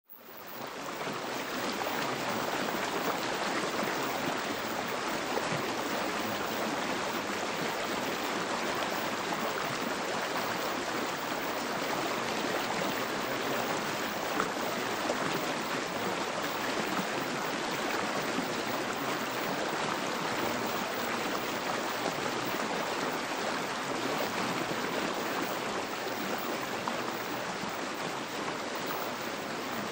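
Steady rushing water noise like a flowing stream, fading in over the first second and then running on evenly: the background sound bed of a subliminal affirmation track.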